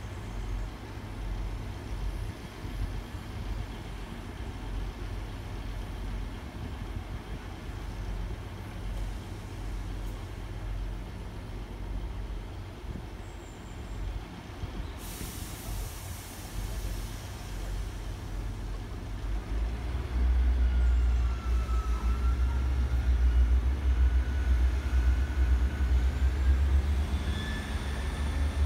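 Class 158 diesel multiple unit idling at a station platform, its underfloor diesel engines running with a steady low rumble. About halfway through comes a short hiss of air, typical of the brakes being released, and about 20 seconds in the engines rev up loudly, with a rising whine above them, as the train pulls away.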